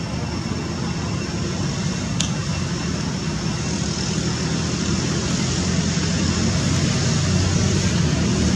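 Low, steady engine rumble of distant motor traffic or a passing aircraft, slowly growing louder. A faint thin high whine runs under it, and there is a single sharp tick about two seconds in.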